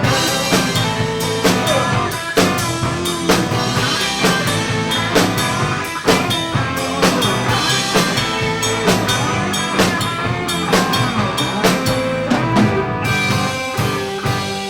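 A live band plays an instrumental passage: a drum kit keeps a steady beat under guitar, with no singing. Near the end the drums and cymbals drop out, leaving held chords.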